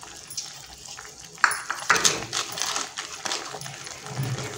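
Wooden spatula knocking and scraping against a metal kadai while stirring noodles into broth: irregular sharp clacks starting about a second and a half in.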